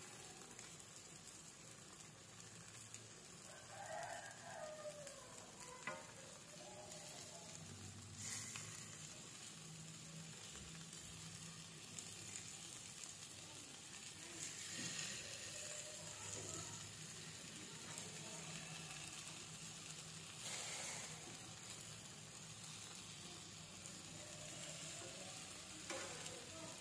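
Egg-coated eggplants sizzling in oil in a nonstick frying pan, with a few brief scrapes and taps of a fork against the pan as they are turned.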